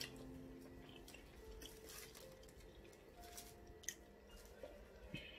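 Faint mouth sounds of eating eba and banga soup by hand: wet chewing and a few sharp smacks, over soft background music of held notes.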